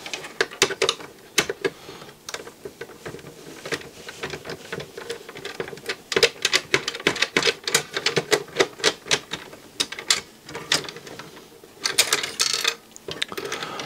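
Rapid, irregular clicking of a screwdriver turning a long screw out of the plastic mechanism frame of a Philips CD473 CD player, with the clicks packed densest in the middle.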